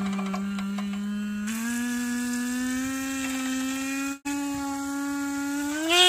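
Motorcycle electric disc horn sounding continuously while submerged in water: a steady buzzing tone whose pitch steps up about a second and a half in and then creeps higher. It cuts out for an instant about four seconds in, and near the end it rises in pitch and gets louder as the horn is lifted toward the surface.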